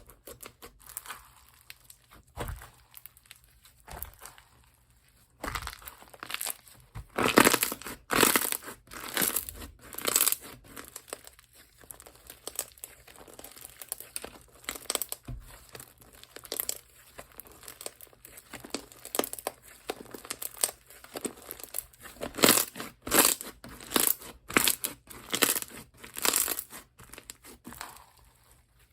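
Hands squeezing and stretching slime, giving irregular bursts of crackling and popping, with short quieter pauses between them.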